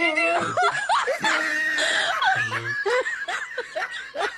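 People laughing and giggling in short, bubbling bursts.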